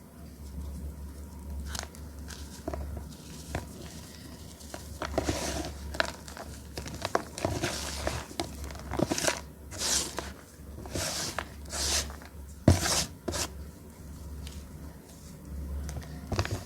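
Soft, cornflour-topped reformed chalk blocks being crushed by hand: crumbling, squeaky crunches in irregular bursts, with one sharper crack near the end, over a low steady hum.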